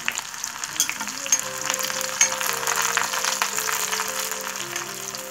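Onion and dried red chillies sizzling in hot oil with mustard seeds in a kadai, stirred with a steel ladle, with sharp crackles through the sizzle. Soft background music comes in about a second in.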